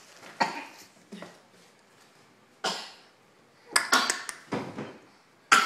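A young child sneezing several times in short, sudden bursts, the loudest near the end. The sneezing is caused by a spaghetti noodle lodged in his nose.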